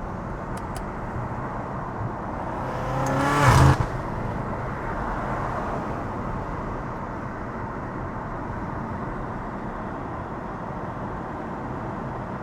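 BMW F90 M5's twin-turbo V8 under a short burst of throttle, its pitch rising for about a second and cutting off sharply about four seconds in, over steady engine and road noise while driving.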